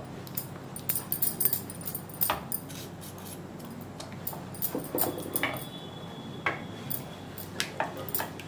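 A spoon stirring thick semolina-and-milk pudding in a metal kadai, knocking and scraping against the pan in irregular clicks, over a faint steady hum.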